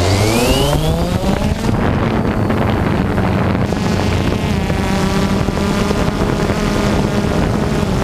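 A motor spinning up, its pitch rising over about the first second and a half, then running steadily, like the engine of the aircraft carrying the camera.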